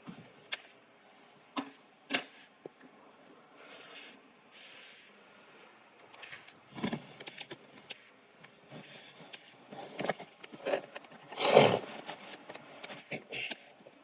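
Scattered sharp clicks and light knocks with a few short rustles, as of small objects being handled. The loudest is a brief rustling thump about eleven and a half seconds in.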